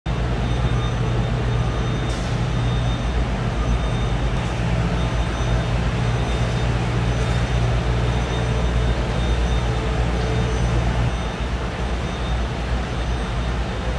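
Steady low hum and rumble of a large factory hall's background machinery, with a few faint ticks, easing slightly near the end.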